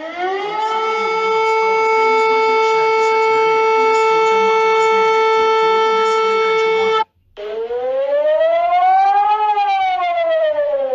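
Civil defence siren sounding a steady tone that quickly winds up in pitch and holds for about seven seconds, then stops; after a short break a siren wail rises slowly and falls again.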